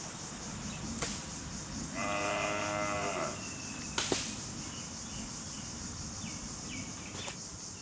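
A cow moos once, a single call of a little over a second about two seconds in, over a steady high insect drone. Two sharp clicks come about one and four seconds in.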